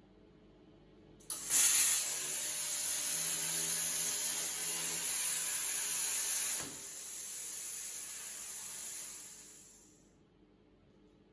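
CNC plasma cutter torch firing: a loud, high hiss starts suddenly about a second in. About six seconds in it drops to a quieter air hiss, typical of the torch's post-flow cooling air after the arc goes out, which fades away near the end.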